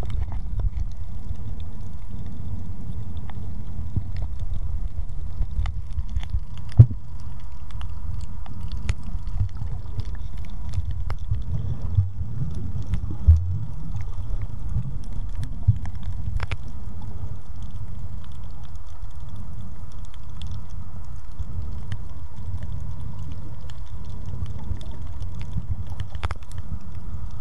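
Underwater sound picked up by a camera in a waterproof housing: a steady muffled low rumble of water, with a few sharp clicks and knocks, the loudest about seven seconds in and again near thirteen seconds.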